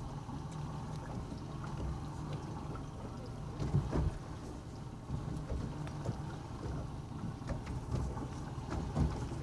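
Steady low rumble and hiss of a boat at sea, with a few faint ticks and rustles of fishing line and a hook being handled while a knot is tied.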